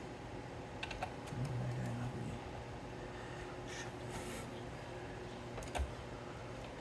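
A few scattered light clicks and taps of hands handling PC parts, over a steady low hum, with a brief low hum-like sound between one and two seconds in.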